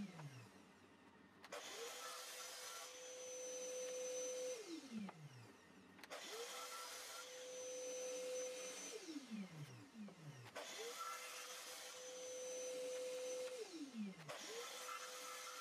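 Sliding mitre saw making repeated crosscuts in boards. The motor winds down from a cut at the very start, then starts three more times. Each time it rises to a steady whine with the hiss of the blade cutting, runs about three seconds, and falls in pitch as it coasts down on release. A fourth start comes near the end.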